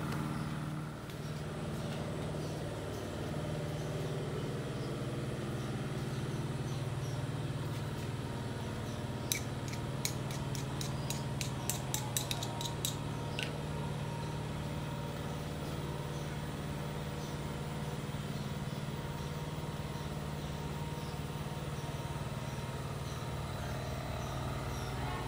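A steady low mechanical hum, with a quick run of about a dozen sharp clicks near the middle.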